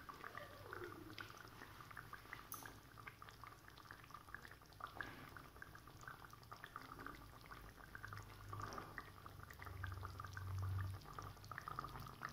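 Thick mustard-paste curry simmering in an aluminium kadai, faint bubbling with many small pops. A low hum swells for a few seconds past the middle.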